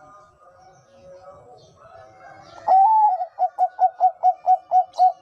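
Bangkok-type perkutut (zebra dove) singing. Soft cooing for the first couple of seconds, then a loud drawn-out coo about two and a half seconds in, followed by a quick run of about eight short staccato coos, around five a second.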